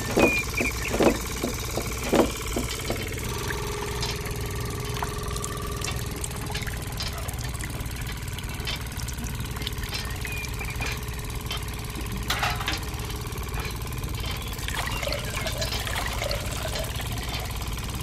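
A motor running steadily with a low, engine-like hum. A few sharp clicks and knocks sound in the first two seconds, and a thin whine is held from about three to six seconds in.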